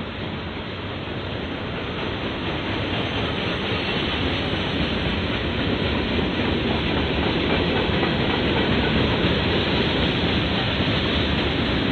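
Freight train cars, tank cars and boxcars, rolling past close by: a steady rumble and rattle of steel wheels on rail, growing gradually louder.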